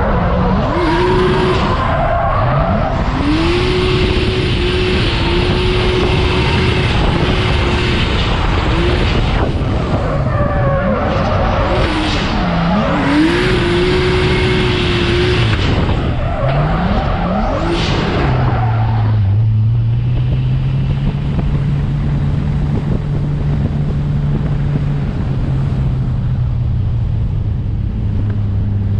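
Nissan Skyline R32 drift car's engine revving hard and held high in several long pulls, the revs dropping and climbing again between them, with tyres screeching through the drifts. About two-thirds of the way in the tyre noise stops and the engine settles to low, steady revs as the car rolls along.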